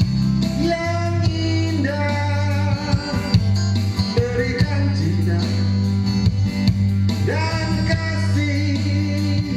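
A pop ballad playing, with a steady bass line, guitar and a wavering lead melody line.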